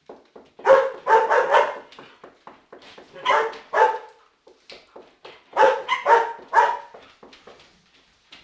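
Chihuahuas barking in three short bursts of quick barks, a few seconds apart, each burst three or four barks long.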